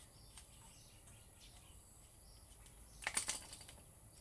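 A quick run of small clicks and taps a little after three seconds in, from angle grinder parts being handled and taken apart by hand. Faint bird chirps sound in the background.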